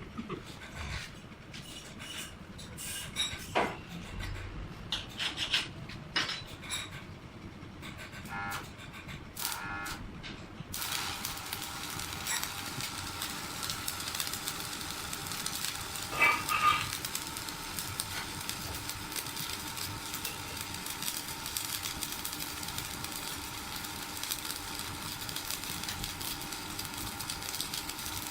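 Workshop sounds: scattered knocks and clatter, then, about a third of the way in, a machine starts a steady hissing noise that carries on unbroken.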